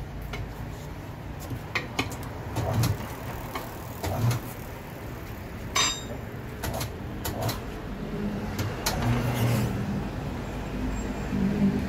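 Tire changing machine at work as a stiff low-profile tire is worked onto an alloy wheel: scattered knocks and clicks of tools and rubber on the rim, with one ringing metallic clink about six seconds in. From about eight seconds on the machine's motor hums steadily.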